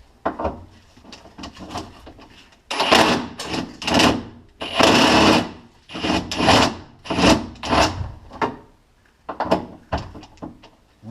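A hand tool rasping against metal in a string of irregular strokes, like sawing or filing, each lasting a fraction of a second to about a second, starting about three seconds in.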